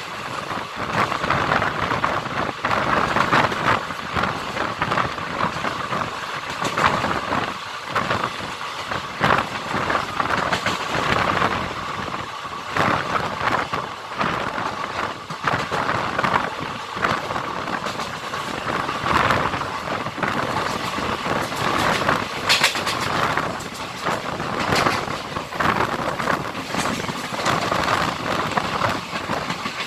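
A moving Indian Railways passenger express: steel wheels running over the rails with irregular clattering and knocking, under a steady rush of wind.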